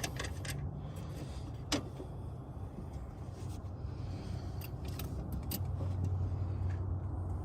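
Scattered metal clicks and clinks of hand tools and parts being worked under a car's hood, one louder click about two seconds in, over a steady low hum.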